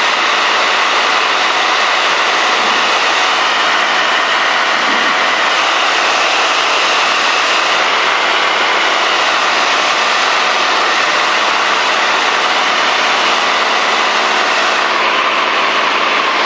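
Steady drone of a Cessna 210D's engine, propeller and rushing air in flight, unbroken and even in loudness.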